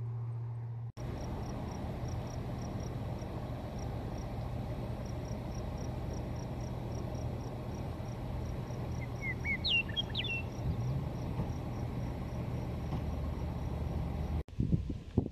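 Wind rushing over a grassy meadow and the microphone. Through it an insect chirps steadily at about three pulses a second, and a bird gives a short call about ten seconds in. A steady low hum cuts off about a second in, and near the end gusts buffet the microphone.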